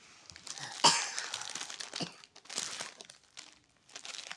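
Plastic wrapper of a Samak coconut wafer packet crinkling in the hands as it is handled, in irregular crackles, with the loudest sharp crackle about a second in.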